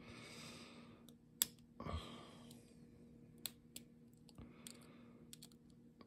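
Faint, scattered sharp metal clicks as pliers tips work a retaining clip on the face of a small brass lock cylinder, being spread to take the lock apart.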